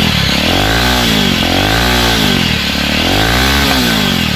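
Jawa motorcycle engine revved three times through its stock exhaust with the dB killer removed, the pitch climbing and falling back with each blip of the throttle.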